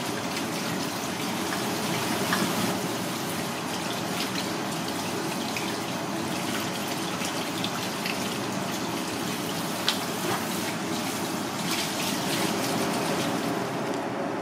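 Water running steadily from a kitchen sink's spray-head faucet, spattering over hands rinsed under it, with a few small knocks and splashes.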